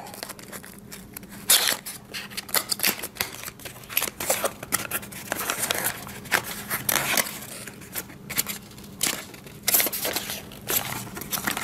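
Cardboard retail box being opened by hand: the paperboard flaps and an inner tray scrape, rub and click against the sleeve in an uneven run of short rustles and scrapes.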